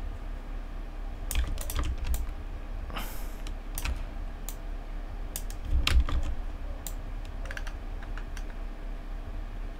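Computer keyboard keystrokes, clicking in small scattered clusters with pauses between them, over a steady low hum.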